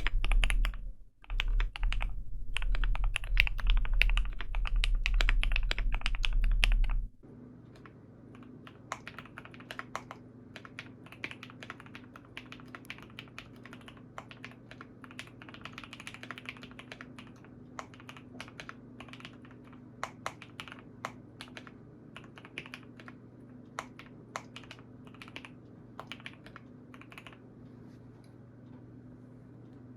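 Typing on a custom KBD75 v3 mechanical keyboard with POM Glacier Panda switches and a polycarbonate plate, as a sound test. It is fast and loud for about the first seven seconds, then drops to quieter, separate keystrokes over a steady low hum.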